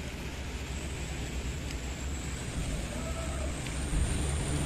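A bus engine running with a low rumble as the bus rounds a wet hairpin bend, growing louder about four seconds in.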